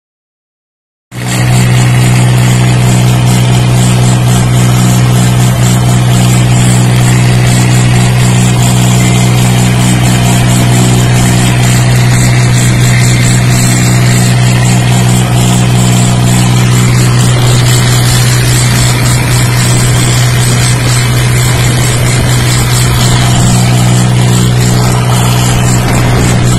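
Swaraj 855 tractor's three-cylinder diesel engine running loud and steady at constant speed, heard close up from the driver's seat on the move. It cuts in suddenly about a second in.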